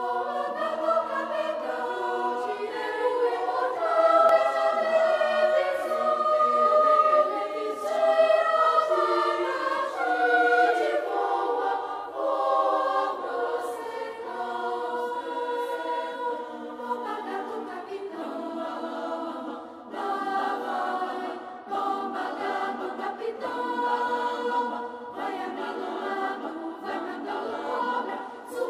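A children's choir singing, with no low voices beneath it.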